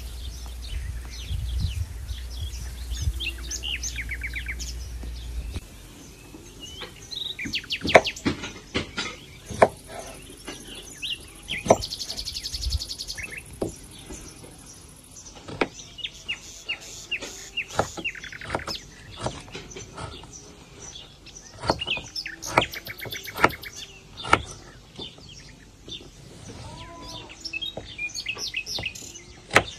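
Small birds chirping and tweeting throughout. A low rumble runs for the first five seconds or so and then stops. From about seven seconds in, a kitchen knife cuts raw potatoes on a wooden board, with irregular sharp knocks of the blade against the board.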